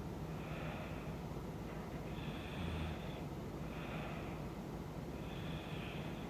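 A woman snoring lightly in her sleep: slow, noisy breaths, in and out about once every three seconds, with a brief low rumble on one breath about two and a half seconds in. A faint steady hum lies underneath.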